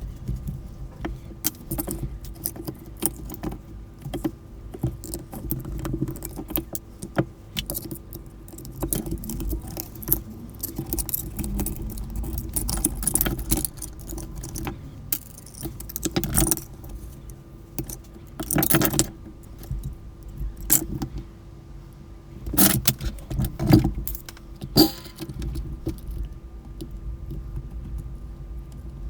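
Hard plastic parts and small components of a Sanyo cordless phone clicking, rattling and knocking as it is handled and taken apart by hand, with a few louder knocks in the second half.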